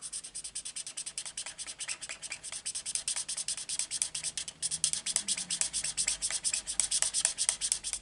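Felt-tip marker tip scrubbing back and forth on cardstock, about eight quick scratchy strokes a second, as a small patch is coloured in.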